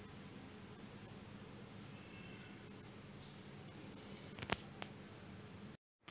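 A steady high-pitched tone over faint room noise, with one faint click about four and a half seconds in; the sound cuts out briefly just before the end.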